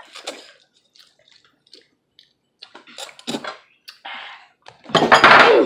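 Wet slurping as instant noodles are sucked up from a bowl, in short scattered bursts. A loud voice breaks in near the end.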